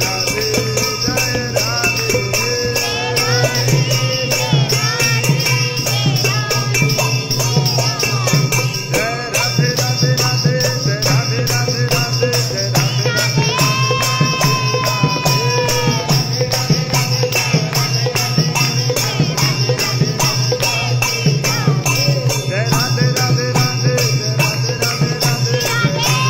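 Hindu aarti music: a wavering melody over a fast, even jingling beat of metal percussion and a steady low drone.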